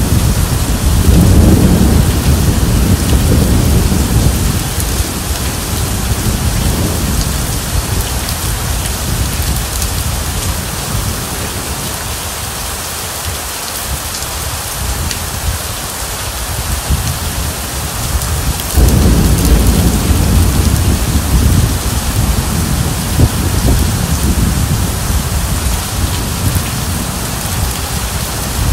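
Heavy rain falling steadily on wet ground, with rolling thunder: a low rumble in the first few seconds that dies away, then another that starts suddenly about two-thirds of the way through and rolls on to the end.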